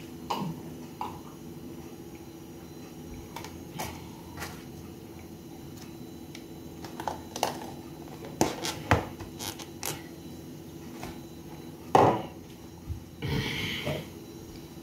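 Kitchen clatter: scattered knocks and clinks of dishes and a drinking glass being handled, the loudest knock about twelve seconds in, over a steady low hum.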